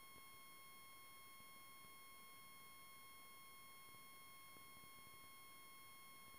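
Near silence apart from a faint, steady, high-pitched electronic tone with overtones that never changes.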